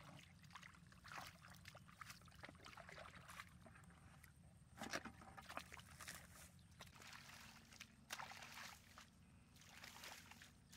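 Faint sloshing and splashing of shallow muddy water as a man wades in rubber waders and gropes through the mud with his hands, in irregular splashes, the loudest about five seconds in and again near eight seconds.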